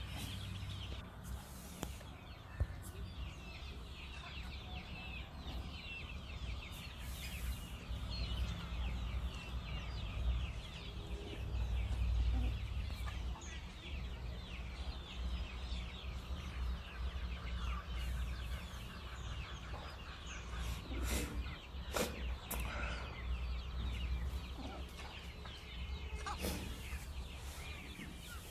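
A flock of free-range desi chickens clucking continuously, many birds calling over one another, over a steady low rumble. A couple of sharp knocks stand out about three-quarters of the way through.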